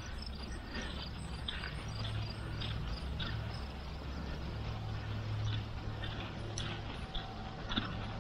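A cart loaded with onions pushed across a lawn: irregular light knocks and rattles, about one or two a second, over a steady low hum.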